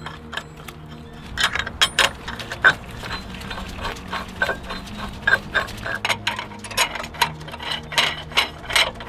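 Irregular metal clinks and clicks of steel tools being handled: a hub puller plate and its lug nuts being fitted onto wheel studs and a slide-hammer shaft threaded in.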